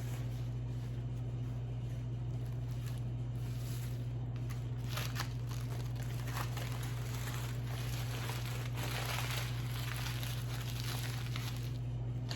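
Food wrapping paper being crumpled and crinkled in bursts, busiest in the middle and latter part, over a steady low electrical hum.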